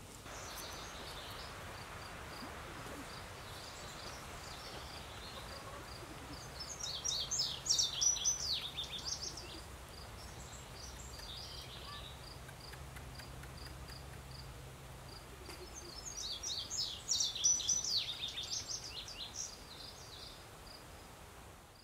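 Outdoor ambience with a wild songbird singing twice, each time a few seconds of rapid, twittering high notes. Beneath it runs a steady, even series of short high chirps, a few a second.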